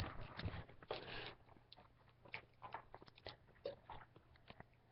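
A person biting and chewing a chocolate bar: faint, scattered short clicks of chewing.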